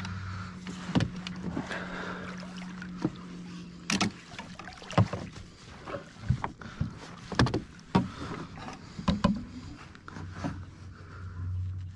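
Kayak on the water: irregular knocks and clunks against the hull, a dozen or so spread through, over a steady low hum that fades after about four seconds and returns near the end.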